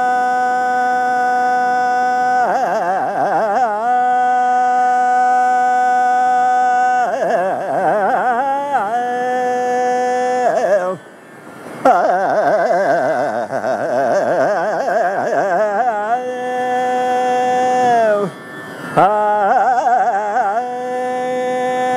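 Male Carnatic vocalist singing an alapana in Raga Bhairavi over a tambura drone, the unmetered, improvised opening exposition of the raga. Long held notes alternate with quickly wavering, ornamented runs (gamakas), with two short breaks for breath.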